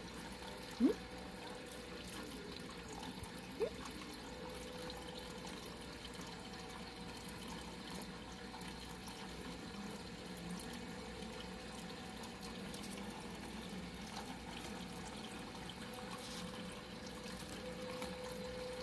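Faint steady hum with a soft hiss, and two brief rising squeaks about one second and three and a half seconds in.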